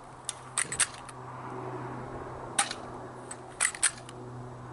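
Crosman Stinger P9T spring-powered airsoft pistol being cocked and fired: a series of sharp plastic clicks and snaps, a cluster in the first second, one about two and a half seconds in, and a quick pair near 3.7 s. A faint low hum runs underneath.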